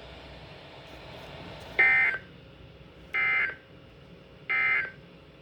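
NOAA Weather Radio SAME end-of-message data bursts through a weather radio's speaker: three short, identical buzzy digital squawks about 1.3 s apart, marking the end of the broadcast severe thunderstorm warning.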